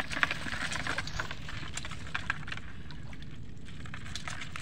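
Shallow water sloshing and dripping as someone wades and gropes in it, with a run of small splashes and clicks in the first two seconds or so that thin out later.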